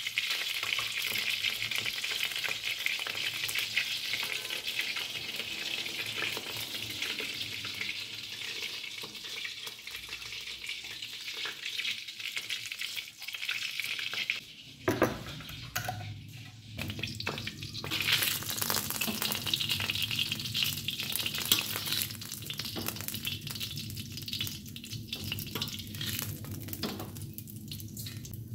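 Hot oil sizzling steadily in a wok, with leftover bits of garlic and batter frying in it. About halfway through the sizzle drops briefly and there is a single knock, then the sizzle resumes.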